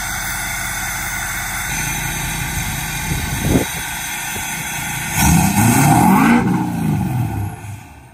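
Ford Super Duty's 6.7 Power Stroke turbo-diesel V8, tuned and with its emissions equipment deleted, idling through the exhaust. It gets a short blip about three and a half seconds in, then a longer rev a couple of seconds later that rises and falls back. The sound drops away near the end.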